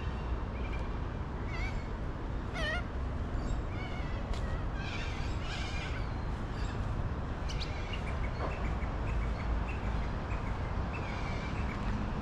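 Birds chirping and calling in short scattered phrases over the steady low rumble of city street traffic.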